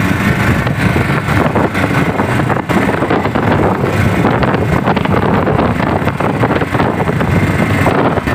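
Strong wind buffeting the microphone, a loud, steady, gusty rumble.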